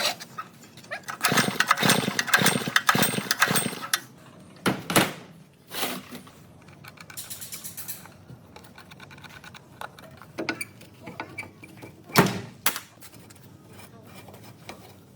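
Metal parts and hand tools clattering and knocking during work on a generator: a rapid irregular run of knocks for the first few seconds, then a few single sharp knocks with light clicks between. No engine is running.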